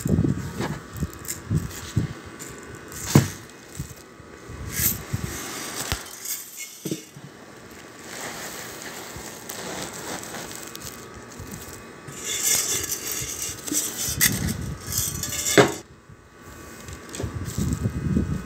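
Small dry grains rattling and rustling as they are poured and spread on a cloth and against a tin can, with a few sharp knocks and a denser pouring hiss a little past two-thirds of the way through.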